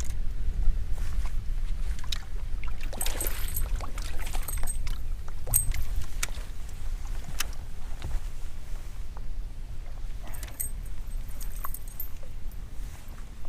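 Low rumble of a small fishing boat on the water, with scattered sharp clicks and short, light metallic jingles.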